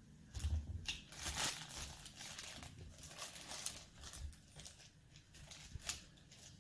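Rustling and scraping of a plastic volcano mould being handled as a rubber band is worked off it, with a few light clicks.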